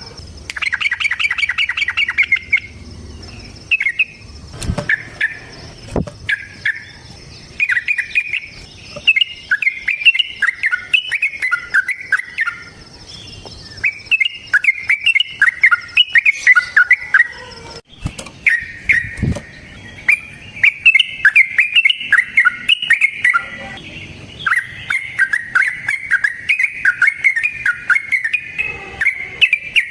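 Yellow-vented bulbul singing its long, rapid bubbly song in repeated runs of chattering whistled notes, with short pauses between runs. A faint steady high tone runs through the first half, and a few sharp knocks sound along the way.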